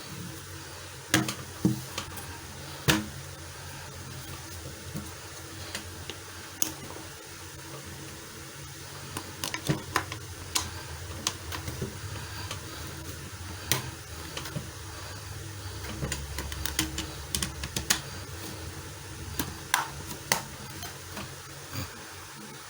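Scattered clicks, taps and light knocks of packaging being handled and opened, irregular and a few much sharper than the rest, over a steady low hum.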